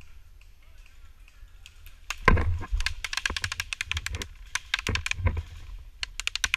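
Airsoft guns firing on full auto: rapid, sharp clicking bursts that start about two seconds in, with a couple of heavier thumps among them.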